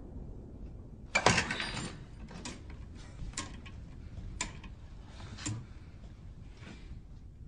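A loud clattering rattle about a second in, then five separate sharp clicks or knocks roughly a second apart, like wood and metal being handled.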